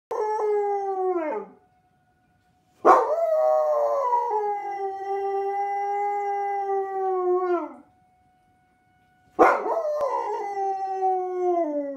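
Tamaskan dog howling along with sirens. Three howls, the middle one nearly five seconds long; each holds a steady pitch and then slides down as it ends.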